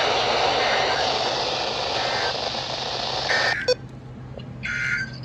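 Weather-radio static hiss, then two short bursts of EAS/SAME digital data tones about a second apart near the end. They are the end-of-message signal that closes a NOAA Weather Radio test broadcast.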